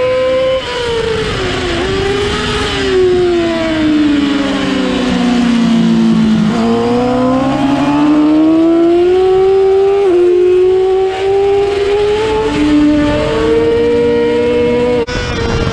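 Yamaha R6 race bike's inline-four engine, heard from onboard. The revs fall steadily as it slows for a corner, then climb again under throttle on the way out, with an upshift about ten seconds in.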